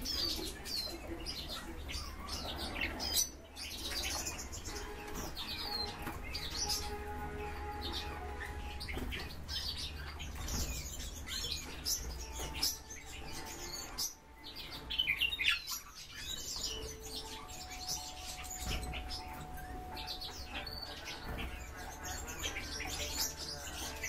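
Several caged finches and other small birds chirping, many short high calls overlapping throughout.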